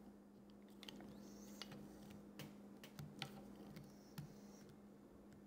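Near silence with a few faint, scattered clicks of a polymer pistol grip and its screw being worked onto an AR-15 lower receiver, over a faint steady hum.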